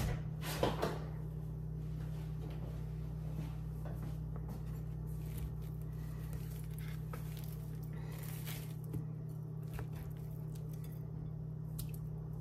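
Raw chicken thighs being turned with a fork in a glass bowl of marinade: soft wet squelches and a few light clicks of the fork, over a steady low hum from a kitchen appliance.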